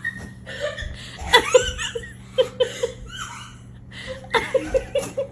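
A person laughing in several bouts, each a run of short, quick pulses.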